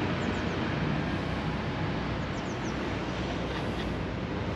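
Steady outdoor background rumble, like distant traffic, with a few faint high chirps.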